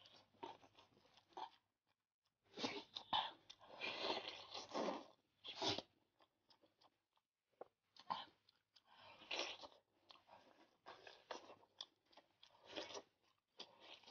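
Close-up eating sounds of beef knee cartilage (牛窝骨) being bitten and chewed, in irregular runs of crunching with short pauses between them. The loudest run comes about two and a half to six seconds in, and another stretch follows from about eight seconds on. The audio is played at double speed.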